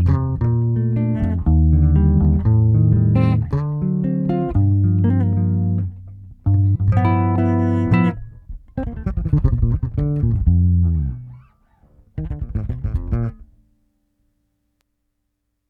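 Electric bass guitar playing a line of plucked notes through a compressor pedal, with a brief pause about six seconds in; the playing stops near the end.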